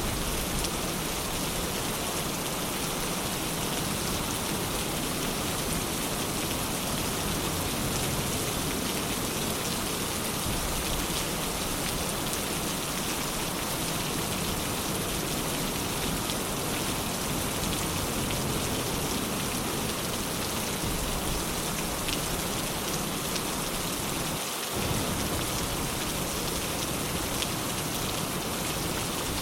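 Steady rain falling on surfaces, an even, dense hiss of many drops with no breaks.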